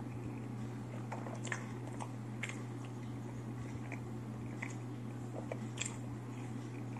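A person chewing a mouthful of crunchy sushi roll close to the microphone, with irregular soft crunches and wet mouth clicks. A steady low hum runs underneath.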